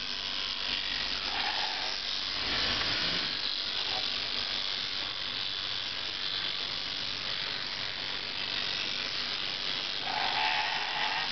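Sheep-shearing machine handpiece running steadily, its reciprocating cutter clipping through a sheep's fleece.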